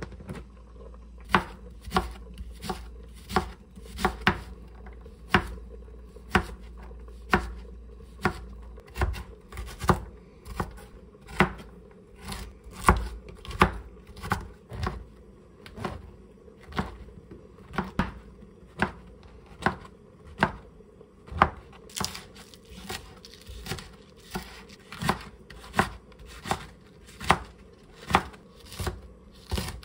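Chef's knife chopping carrots and then slicing green onions on a plastic cutting board: a steady run of knife strikes against the board, about two a second.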